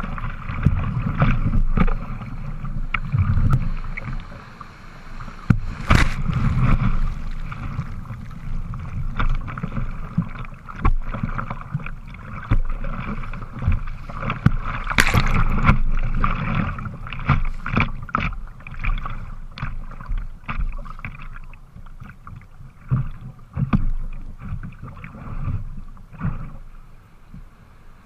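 Kayak being paddled through surf: water rushing and splashing against the hull and the bow-mounted camera, with paddle strokes splashing in. The biggest splashes come about 6 and 15 seconds in, and the water calms near the end.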